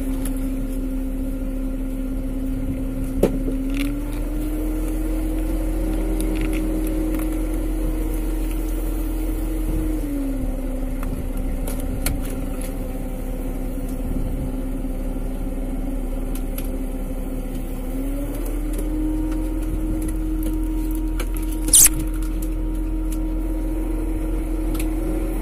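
Fishing boat machinery running with a steady drone while the longline is hauled in. Its pitch steps up slightly about four seconds in, drops back about ten seconds in and rises again near eighteen seconds. A few sharp knocks sound over it, the loudest a little before the end.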